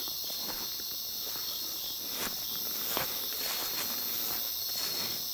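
A steady chorus of insects buzzing high and continuously, with a few soft footsteps on the ground.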